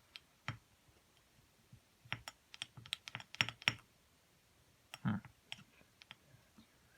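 Small metal engine parts and hand tools clicking and clinking as a two-stroke cylinder is taken apart. The clicks are scattered, with a quick cluster in the middle and a duller knock about five seconds in.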